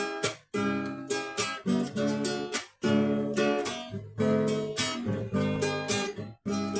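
Acoustic guitar being strummed in chords, with a few brief stops where the strings are muted.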